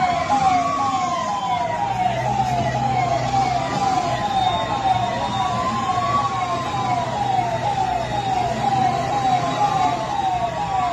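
Emergency sirens sounding together. One repeats a quick falling sweep about twice a second; the other is a slower wail that rises and falls every five or six seconds. A low engine hum runs beneath them.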